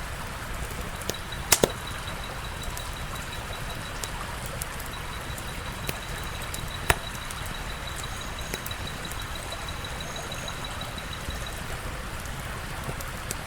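Wood fire crackling: a steady hiss with scattered snaps and pops, the sharpest a quick pair about a second and a half in and a single loud pop about seven seconds in. A faint steady high tone runs underneath.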